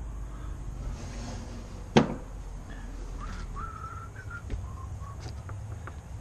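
Hand tools handled against metal: one sharp clank about two seconds in, followed by a faint thin squeak and a few light clicks.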